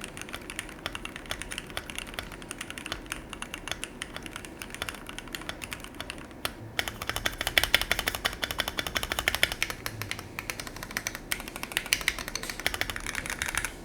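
Typing on a mechanical keyboard fitted with OEM-profile keycaps: a fast, dense run of key clacks. The clacks get louder and brighter about seven seconds in.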